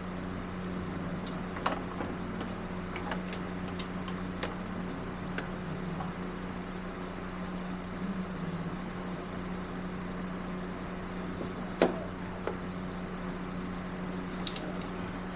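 Steady hum of an electric fan running, with scattered small clicks and knocks from parts and tools being handled. The sharpest knock comes about twelve seconds in.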